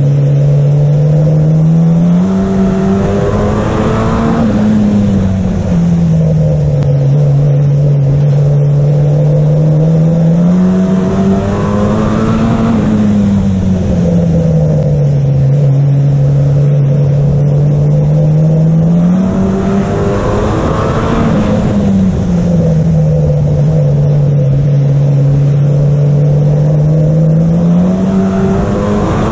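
Oval racing car's engine heard from inside the car, loud over road and wind noise: the revs climb and fall back four times, about every eight seconds, as it goes from straight to bend on each lap.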